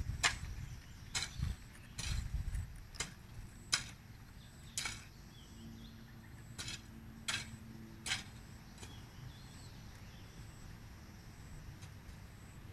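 Long-handled garden tool striking and scraping through soil in irregular strokes, about ten in the first eight seconds, after which the strokes stop.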